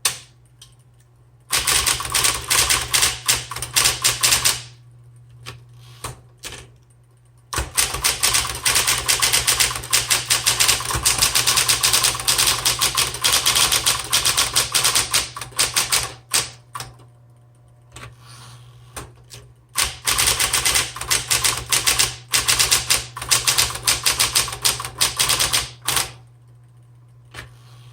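Smith Corona Electra 120 electric typewriter typing in three long runs of rapid keystrokes with short pauses between them, its motor humming steadily underneath.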